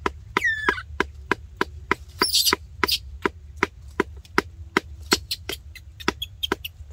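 Rapid, even chopping strokes, about three a second, from a man working by hand, with a short high falling squeak about half a second in.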